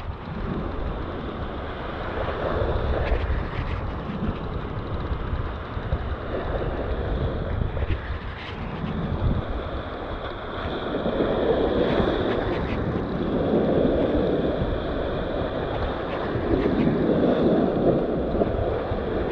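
Sea surf washing and breaking against shoreline rocks in swells every few seconds, louder in the second half, with wind buffeting the microphone.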